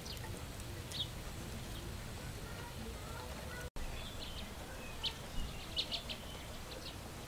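Outdoor ambience of birds chirping in short high notes, one early and several in quick clusters after the middle, over a steady low background rumble.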